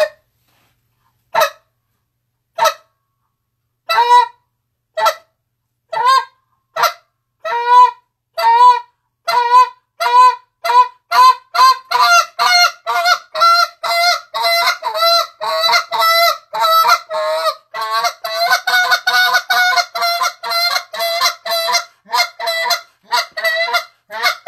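Goose call blown by mouth, imitating a Canada goose getting ready to take off and then taking off, with spit notes and spit moans. A few single notes, spaced a second or more apart, quicken into a fast, steady run of calls, several a second, from about halfway in.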